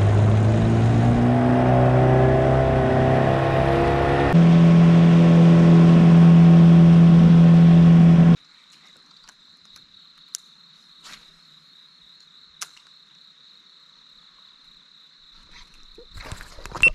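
Boat outboard motor running at speed, its pitch climbing early on and then jumping higher about four seconds in. It cuts off suddenly about eight seconds in, leaving a steady high-pitched insect buzz with a few faint clicks.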